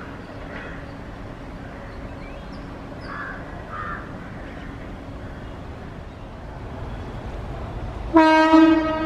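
Low rumble of a distant approaching train with a few bird calls, then about eight seconds in a sudden loud, steady blast of an Indian Railways electric locomotive's horn, lasting about a second.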